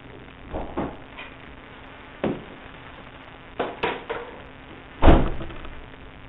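A series of irregular sharp knocks and clanks, some in quick pairs, the loudest one about five seconds in, over a faint steady hum.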